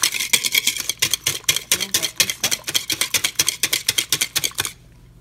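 Hand whisk beating an egg, sugar and yogurt batter in a bowl, clicking rapidly against the bowl's sides at about nine or ten strokes a second; the whisking stops abruptly shortly before the end.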